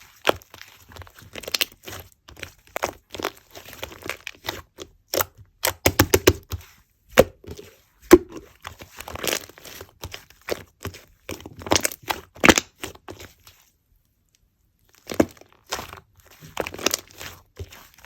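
Slime being squished and stretched by hand, giving irregular bursts of crackling and sticky popping. It stops for about a second near the end, then resumes.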